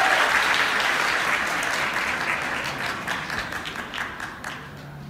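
Audience applause, many hands clapping, dying away over the few seconds until it has nearly stopped near the end.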